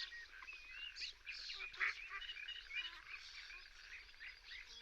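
Birds calling: a faint chorus of many short, high chirps and peeps overlapping one another.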